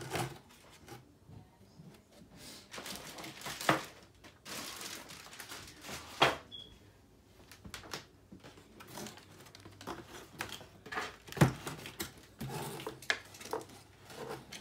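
Packaging rustling and crinkling in a cardboard box as it is unpacked by hand, with scattered sharp clicks and knocks. The loudest knocks come about four, six and eleven seconds in.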